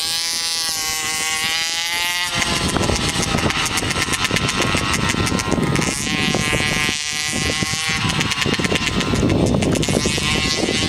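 Small motorbike engines running at high revs, a high-pitched engine whine that wavers up and down in pitch as the bikes race around the track. A loud rushing noise covers much of the middle and end.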